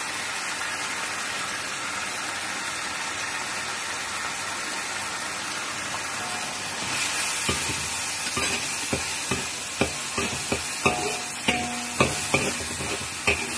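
Chicken and diced carrot sizzling in a wok, a steady hiss. About halfway through, a metal spatula starts stir-frying, scraping and knocking against the wok about twice a second.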